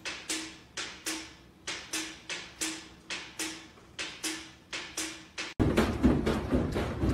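A cat's paw tapping on a window over and over, about three sharp taps a second, each with a short ring. About five and a half seconds in, the tapping cuts off and a louder, rough noise takes over.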